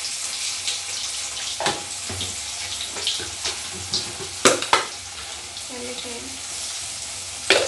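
Potato pieces frying in hot oil in an iron kadai: a steady sizzle full of crackling pops as the oil spatters. A few sharper clicks stand out, about two seconds in, twice around the middle, and near the end.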